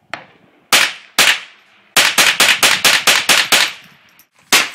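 GSG-5 semi-automatic .22 LR rifle firing: two single shots, then a fast string of shots at about six a second, and one more shot near the end.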